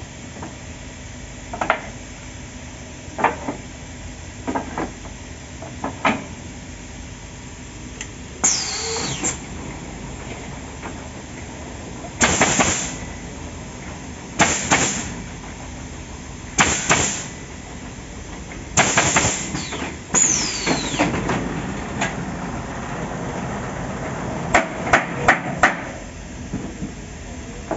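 Automatic stringer pallet nailing machine running: sharp nail-driving knocks about every second and a half, then several short bursts of hissing air, two with a falling whistle, and a quick run of about five nailing strikes near the end, over a steady machine hum.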